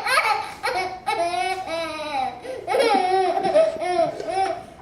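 A young child's voice making a string of high, drawn-out squeals that rise and fall in pitch.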